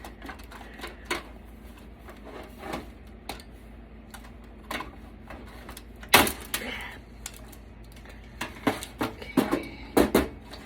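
Irregular clicks and clatters of wires and plastic connectors being pulled and handled inside a desktop computer case, with one louder knock about six seconds in and a quick run of clicks near the end.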